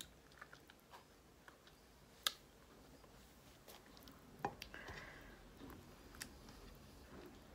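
Quiet eating by hand: faint chewing and mouth sounds with a few short, sharp clicks, the sharpest about two seconds in.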